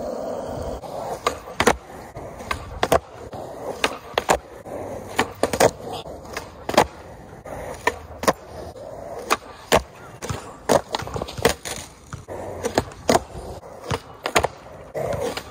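Skateboard doing flatground flip tricks on asphalt: tail pops, flicks and landings snap and clack sharply again and again, with the wheels rolling between them.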